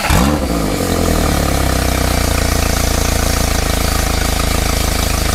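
Freshly serviced Mercury outboard motor starting, with a brief rise and fall in pitch, then idling steadily while it pumps its cooling water.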